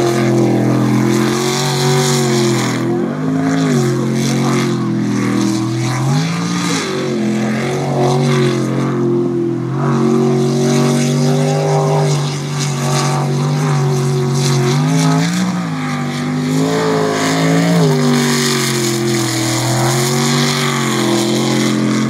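Sprint boat's racing engine running hard, its pitch dipping and rising again and again as the throttle is eased and opened.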